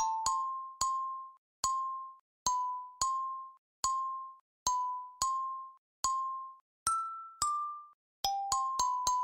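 Kalimba playing a slow melody one plucked note at a time. Each high, bell-like note rings briefly and dies away before the next, with a quicker run of notes near the end.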